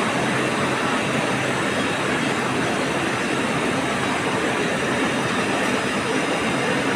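Two-colour rotogravure printing press running at a steady speed: a constant, dense mechanical noise with a faint steady low hum and no changes in level.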